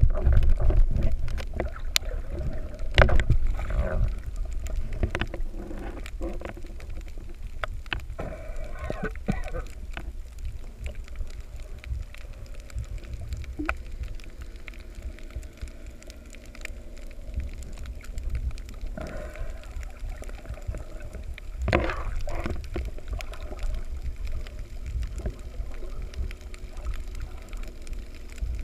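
Underwater sound around a camera held below the surface while snorkeling: a muffled low rumble of moving water with scattered clicks and knocks, a little louder in the first few seconds and again with a cluster of knocks about three quarters of the way through.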